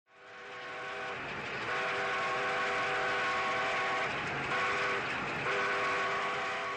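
Canadian Pacific steam locomotive 1201's whistle sounding a chord of several notes in separate blasts, short, long, short and then long again, over the steady noise of the passing train.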